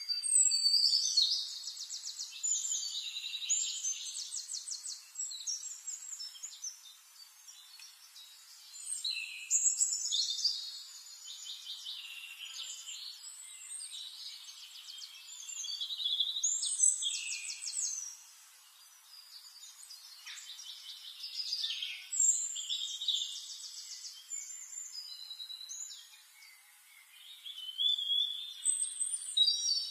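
A songbird singing in long, rapid trills and warbling phrases a few seconds long, with short pauses between them.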